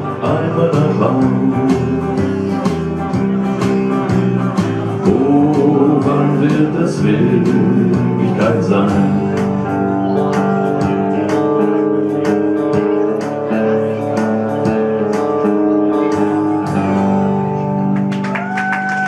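Live country music: an acoustic guitar strummed alongside an electric guitar, over a steady beat.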